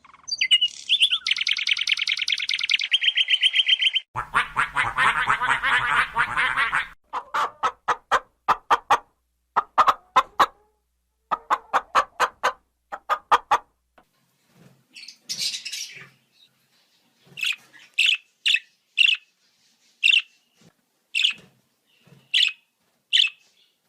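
A string of different bird calls one after another. First comes a fast, high trill for about four seconds, then a dense, noisy chorus for about three seconds, then groups of short repeated calls. Near the end there are single sharp, high calls about a second apart.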